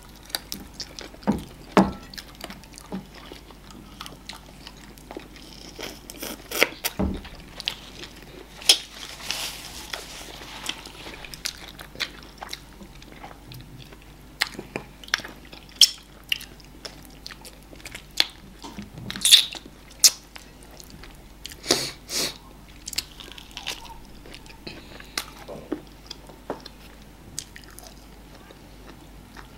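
Close-miked eating of amala (brown fufu) with ogbono soup and assorted meat by hand: chewing and biting, heard as irregular short wet clicks and smacks with no steady rhythm.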